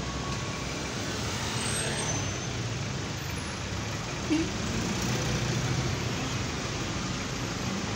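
City street traffic: a steady rumble of idling and slowly passing vehicle engines, with one short blip about four seconds in.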